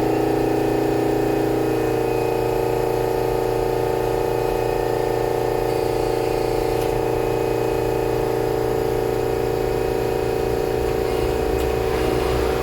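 A steady machine whir with a constant hum of several held tones and faint hiss, from a running workshop motor.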